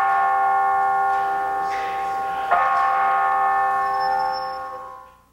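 Bell chimes: several pitches ringing together, struck again about two and a half seconds in, then dying away to silence near the end.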